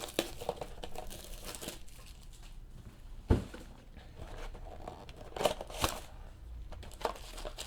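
Crinkling and tearing of a trading card pack's wrapper being opened by hand, with a knock about three seconds in and two sharp clicks a little before six seconds.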